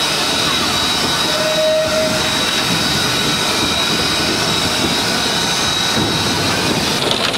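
Steam locomotives working a train past: a loud, steady rush of exhaust, steam and running gear, with a thin high whine throughout and a brief tone about a second and a half in.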